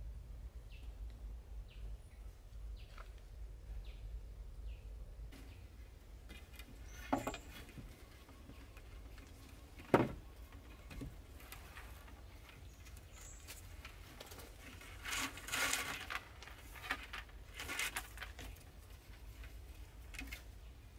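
Faint short chirps repeat about once a second, then a sharp knock about ten seconds in. Several bursts of rustling and scraping follow near the end, like things being handled at camp.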